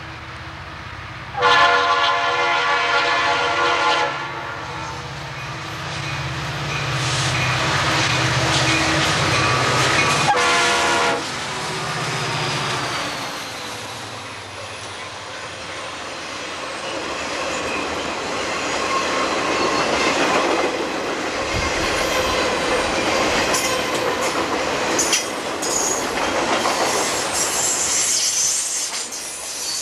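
Conrail diesel freight train passing: the locomotive's air horn sounds one long blast, then a shorter one about ten seconds in, over the engines' low rumble. The train of piggyback trailers on flatcars then rolls by with wheels clattering over the rail joints and some squealing.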